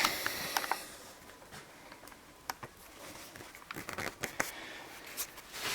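Light clicks, taps and rustling from an item and its packaging being handled, in scattered small bursts.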